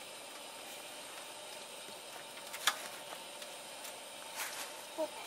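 Stew simmering in a Dutch oven with a faint steady hiss, broken by a few short clicks.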